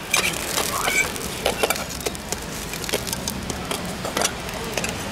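Quick, irregular clicks and clinks of a metal hotteok press and steel dome lids knocking against a hot iron griddle as a sorghum hotteok is pressed flat, over a steady hiss.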